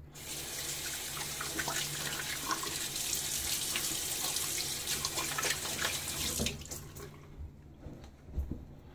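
Bathroom sink tap running while water is splashed onto the face by hand. The water stops about six and a half seconds in, and a towel is then rubbed over the face.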